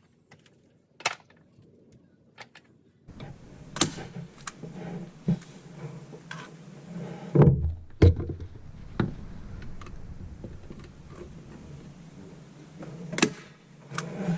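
Scattered knocks and clunks of objects being handled. The loudest are two heavy thumps about halfway through, over a faint steady background noise that comes in after about three seconds.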